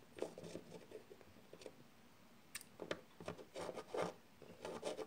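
Small plastic Littlest Pet Shop figurines handled and set down on a tabletop: faint taps and rubbing, a few at first, then a busier run of them from about halfway.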